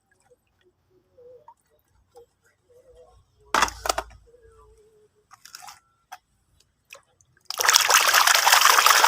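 Water splashing as a plastic toy car is washed: a short splash about three and a half seconds in and a few small knocks, then a loud steady rush of splashing water starting near the end.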